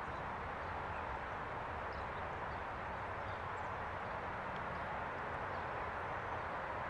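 Steady hum of distant road traffic with faint, scattered bird chirps over it.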